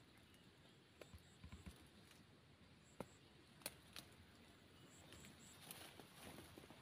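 Near silence outdoors: a few faint clicks, and faint high chirps in quick groups of two or three that come three times.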